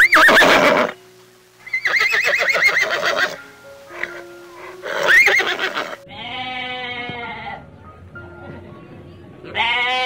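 Horses neighing three times in the first six seconds, each whinny with a quavering pitch. Then sheep bleating twice, a long bleat about six seconds in and a shorter one near the end, over quiet background music.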